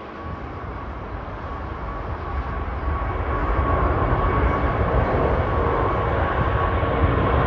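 Airbus A380's four jet engines at takeoff power, the jet noise growing steadily louder as the airliner climbs out toward the listener. A steady high tone sits over a deep rumble.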